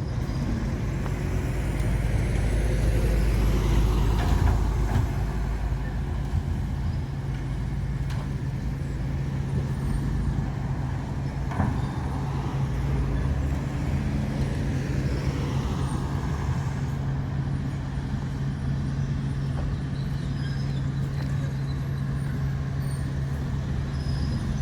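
Heavy diesel construction machinery running steadily at a dirt-moving job, a dump truck and a bulldozer at work. The engine swells louder a few seconds in, and a single sharp knock comes about midway.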